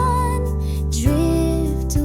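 Soft lullaby music: a gentle melodic voice holds one note, then glides into a new note about a second in, over a steady, sustained accompaniment.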